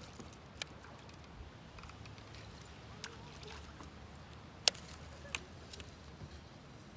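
Quiet, even background with a few short, sharp clicks and knocks; the loudest comes about two-thirds of the way through, with another just after it.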